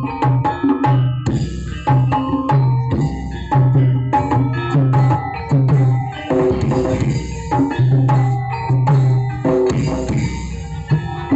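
A large outdoor 2500-watt sound-system stack playing drum-heavy music, with sharp percussion hits over a deep bass note that repeats in short held pulses.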